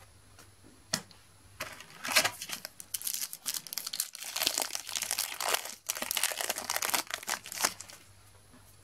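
Foil trading-card packet being torn open and crinkled by hand: a single click about a second in, then several seconds of crackling and tearing that stops shortly before the end.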